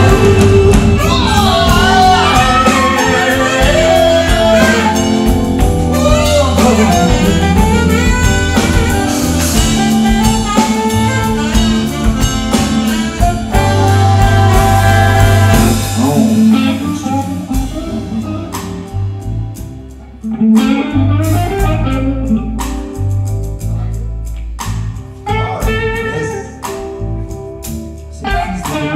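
Live band music with singing, a full rhythm section and backing choir; a little over halfway through the full band drops back and an electric guitar carries on with sparse accompaniment.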